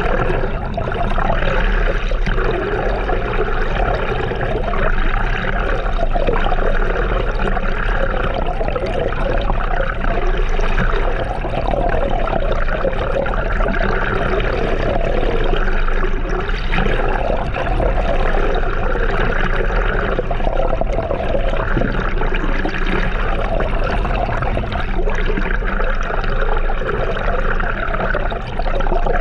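Steady rush and slosh of moving water.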